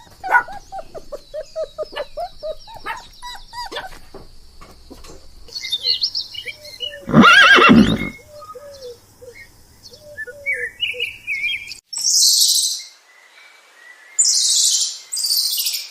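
A string of short animal calls and chirps, with one loud drawn-out call about seven seconds in.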